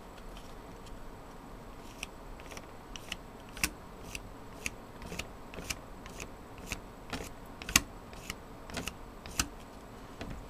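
Light, irregular clicks and ticks of a plastic spreader card scraping and tapping across a CPU heat spreader while spreading thick thermal paste, with one sharper click about three-quarters of the way through.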